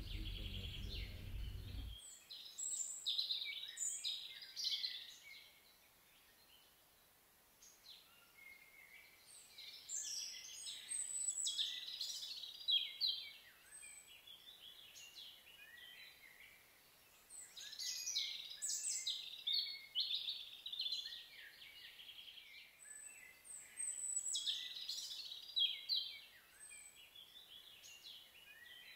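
A songbird singing in short, varied, high-pitched phrases of quick chirps and whistles, four phrases each a few seconds long with pauses of several seconds between them.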